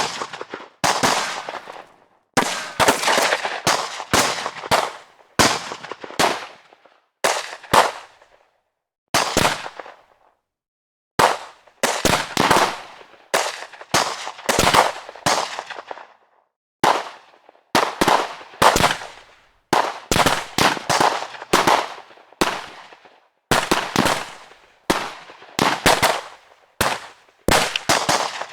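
Gunfire sound effects: a long series of single shots and rapid bursts, each shot cracking sharply and trailing off in echo, with one longer pause about ten seconds in.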